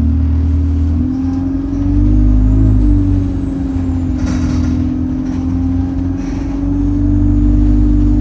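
Diesel bus engine running under way through its Allison automatic gearbox, a steady drone whose pitch steps about a second in and again near three seconds, with a faint high turbo whistle. A short hiss comes about four seconds in.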